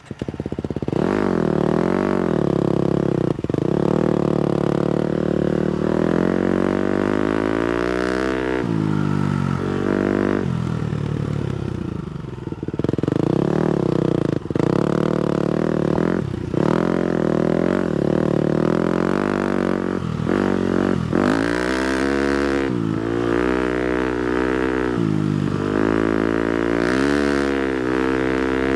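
250cc four-stroke single-cylinder motocross bike being ridden, its engine revving up and dropping back again and again as the throttle is worked, with a few short knocks and clatter.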